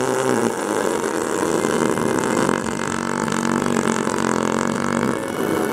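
A long, rasping fart sound effect whose pitch wavers and sinks, running on for several seconds.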